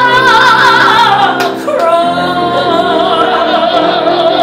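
A woman singing with piano accompaniment, holding long notes with vibrato; about two seconds in, her voice falls to a lower note and holds it.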